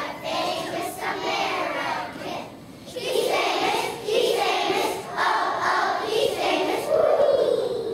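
A large group of young children singing a song together, with a short pause between lines about two and a half seconds in.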